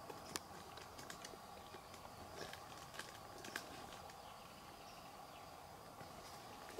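Quiet outdoor ambience by still water: a faint steady insect-like chirring, broken by a few brief sharp clicks in the first four seconds.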